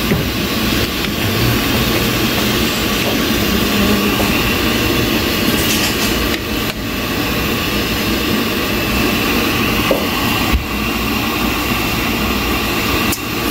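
A steady, loud rushing hum with a faint whine runs under chicken curry simmering in a non-stick pan while a ladle stirs it.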